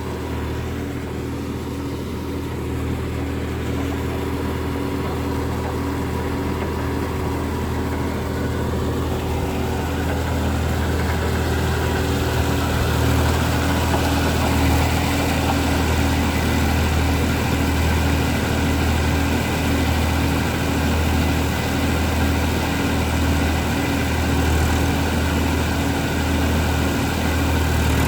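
Tractor engine running steadily with a low, even hum that grows louder about a third of the way through.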